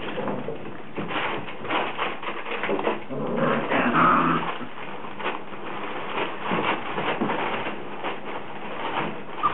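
Rhodesian Ridgeback puppies whimpering and growling over constant scuffling and knocking, with a louder cry about four seconds in.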